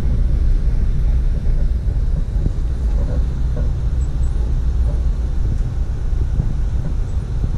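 Steady low rumble of a moving road vehicle, heard as continuous road and engine noise.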